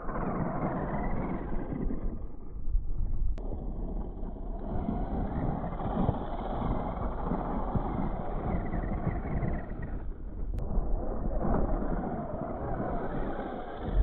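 Electric Tamiya Wild One RC buggy driving hard across loose dirt: motor running and tyres churning and spraying dirt, in a continuous rough noise that swells and fades as the buggy passes and slides.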